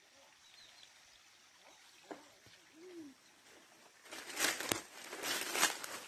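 Footsteps on dry leaf litter and brush rustling, in uneven bursts starting about four seconds in. A faint short call is heard about three seconds in.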